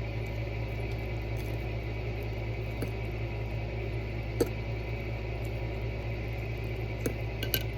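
Microwave oven running with a steady low hum, a few faint clicks over it.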